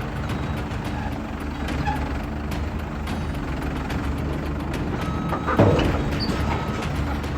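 Heavy vehicle's engine running steadily; about five seconds in a reversing alarm starts beeping, with a single knock just after the first beep.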